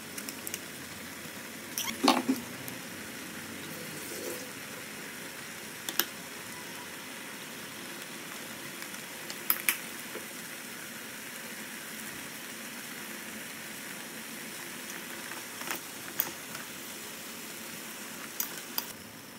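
Vegetables simmering in a little water in a stainless steel pan, a steady bubbling hiss, with a few sharp clinks of a metal spoon against the pan.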